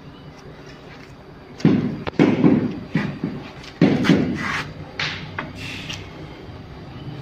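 Large ceramic floor tiles knocking and clattering against each other as they are lifted from a stack and handled. The loudest clacks come about one and a half to four seconds in, with lighter knocks up to about five and a half seconds in.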